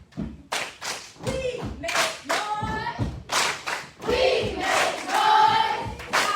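Voices chanting a poem in a sung, drawn-out way, with sharp hand claps and thumps in the first couple of seconds; the voice grows louder and more sustained towards the middle.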